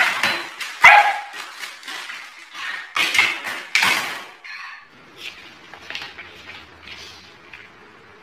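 A dog barking and lunging at a front door's brass mail slot, the metal flap clattering, in several sharp bursts over the first four seconds. After that it is much quieter.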